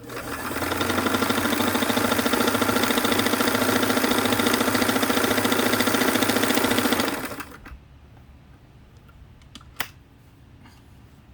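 Singer 327K domestic sewing machine running steadily at speed, stitching a straight seam with a fast even rhythm; it speeds up over the first second and stops after about seven seconds. A single sharp click follows a couple of seconds later.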